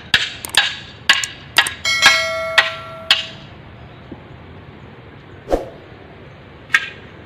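A hand tool strikes bamboo poles over and over, sharp knocks about two a second, then two more widely spaced knocks later on. A bell-like chime rings over the strikes about two seconds in.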